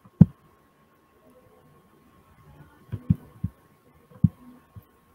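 Several dull low thumps, the loudest just after the start and a quick cluster about three seconds in, over a faint steady high-pitched tone.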